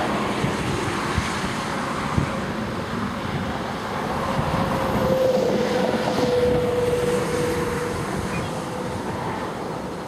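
Gusty storm wind buffeting the microphone, a low rushing noise that swells and eases. A faint steady tone grows in the middle and fades away.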